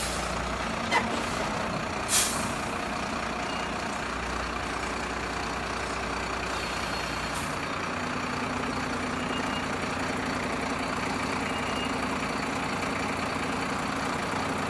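Iveco Stralis 260S refuse truck's 7.8-litre six-cylinder diesel running with a steady drone as the truck creeps forward, with short sharp hisses of compressed air from its air brakes about one and two seconds in and again later. A steadier hum joins the engine sound about eight seconds in.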